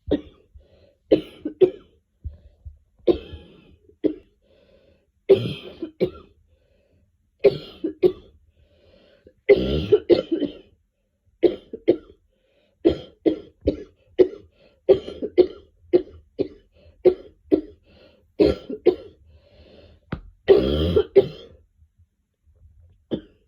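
A woman coughing over and over in short single and double coughs, about one a second, with longer fits of several coughs about ten seconds in and again near the end.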